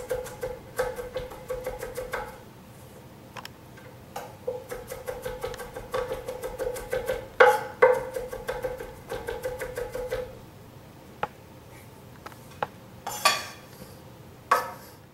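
Chef's knife mincing garlic on a wooden cutting board: irregular blade strikes and taps, with a few louder knocks near the end. A steady background tone runs under much of the first two-thirds.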